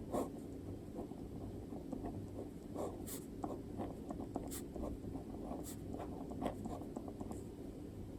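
Handwriting on paper: a steady run of small scratching strokes, with a few sharper ticks spread through it.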